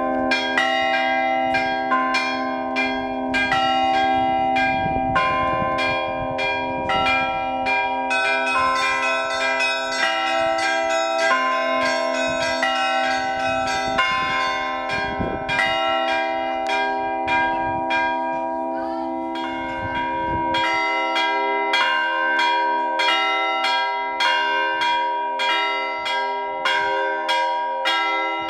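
Russian Orthodox church bells ringing together in a continuous peal. Small bells are struck in a quick rhythm about twice a second over the sustained hum of the larger bells.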